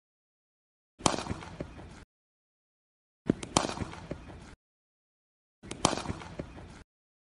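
Cricket bat striking a ball three times. Each shot is a sharp crack followed by a few lighter knocks, and each is cut off suddenly, with silence between.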